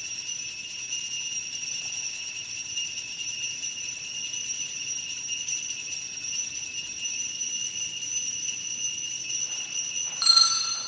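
Altar bells ringing steadily at the elevation of the consecrated host, with a louder ring near the end before the sound dies away.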